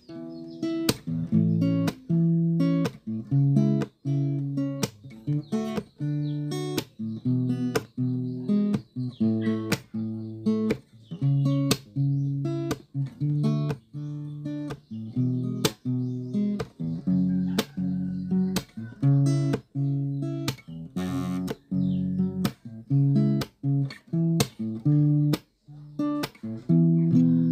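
Background music: a strummed guitar playing chords in a steady rhythm.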